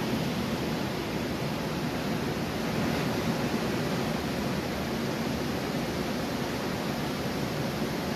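Ocean surf breaking along a beach, heard as a steady, even wash of noise.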